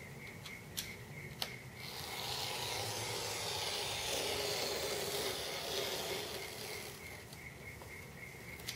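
Knife blade drawn along the edge of a steel ruler, slicing through tape on a glass-fibre wing skin: a long scratchy hiss from about two seconds in, fading around seven seconds, after a couple of light clicks as the blade is set.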